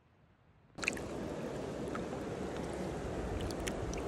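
Shallow river water running over stones, a steady rushing that starts about a second in after a brief silence, with a few small splashes and clicks.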